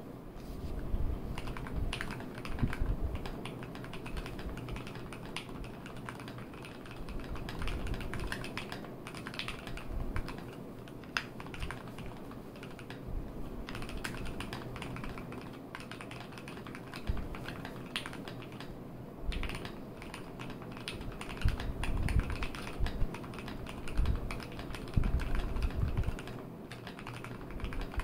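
Typing on a GMMK Pro mechanical keyboard fitted with Gateron Milky Yellow linear switches, C3 stabilisers and PBT XDA-profile keycaps: a continuous, irregular run of keystrokes, with heavier, deeper strokes in the second half.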